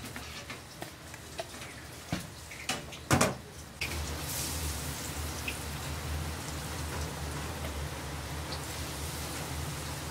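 Batter-coated dumplings deep-frying in hot oil: a steady sizzle and crackle of bubbling oil that starts about four seconds in. Before it come a few light clicks and one sharp knock, from chopsticks working dumplings in a bowl of batter.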